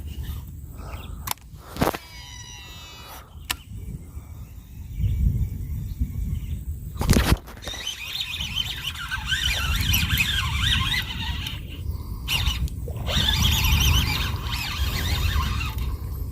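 A baitcasting cast on a Shimano Scorpion DC reel: a click as the spool is released, then the reel's electronically controlled (DC) brake whines as the spool spins out, with a wavering high pitch lasting about a second and a half, ending in another click.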